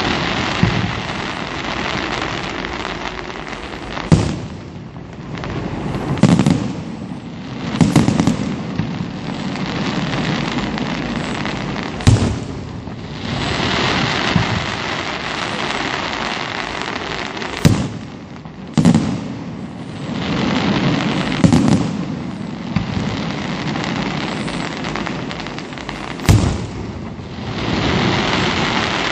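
Aerial firework shells bursting, with about eight sharp bangs spaced irregularly a few seconds apart. Between the bangs there is a steady, dense crackling hiss from the glittering stars.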